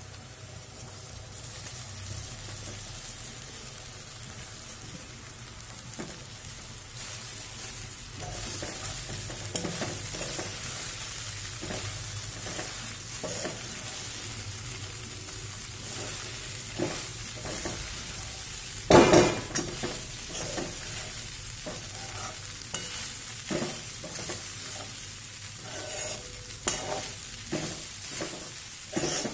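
Poha (flattened rice) frying with potatoes and curry leaves in a steel kadhai, stirred with a steel spoon: a steady sizzle, with the spoon scraping and clinking against the pan from about a quarter of the way in. One loud knock of the spoon on the pan comes a little after halfway.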